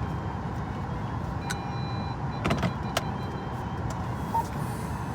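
A car's engine and road rumble heard from inside the cabin as it is driven slowly, with a few sharp clicks about one and a half, two and a half and three seconds in.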